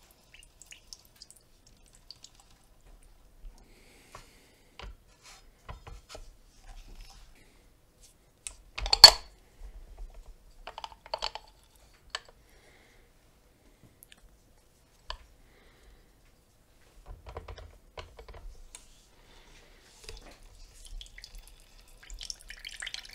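Scattered clicks and clunks of a vintage lever-press citrus juicer worked by hand as orange halves are set on its cone and pressed, with one sharp knock about nine seconds in and a short rustling hiss near the end.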